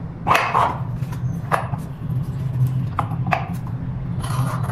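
A dog barking, several short barks spread out over a few seconds, over a steady low background hum.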